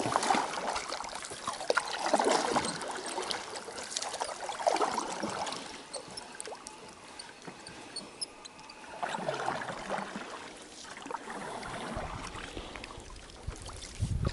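Water trickling and splashing at the side of a small boat, swelling every couple of seconds.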